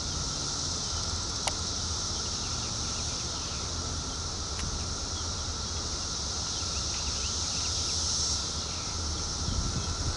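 Steady high-pitched drone of insects, with a low rumble underneath from a diesel freight train still far off and approaching.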